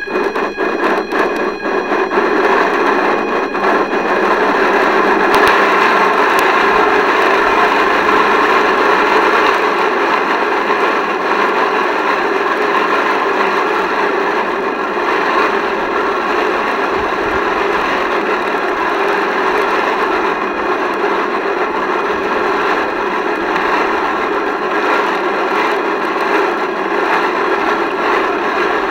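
Small model boat's motor running steadily, with water rushing along the hull, picked up by a camera on board. A few sharp clicks come in the first few seconds.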